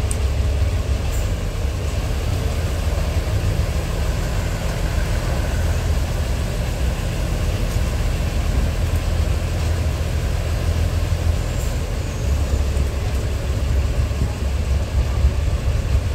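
DR2303 diesel railcar under way at low speed, heard from inside the carriage: a steady low rumble of its diesel engine and running gear on the track.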